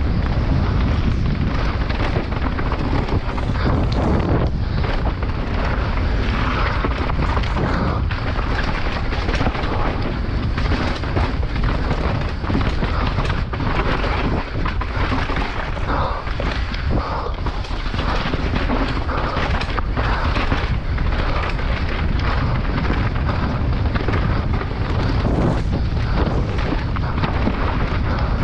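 Downhill mountain bike descending at speed over loose gravel and rocky, stone-paved track, heard from an on-bike camera: constant low rumble of wind buffeting and tyre noise, with rapid, irregular clatter and knocks from the bike over rough ground.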